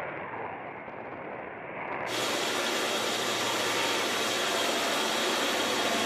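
Muffled, steady jet roar of an EA-18G Growler's twin engines as the jet climbs away after take-off. About two seconds in the sound changes abruptly to a steady, brighter hiss with a faint high whine.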